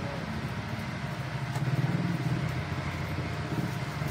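Steady low rumble of vehicle noise, swelling for about a second near the middle.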